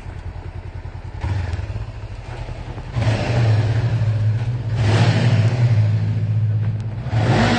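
Honda CB500F's parallel-twin engine running as the bike rides off, getting louder in steps about one and three seconds in as the throttle is opened. Two short louder rushes of revving about five seconds in and near the end.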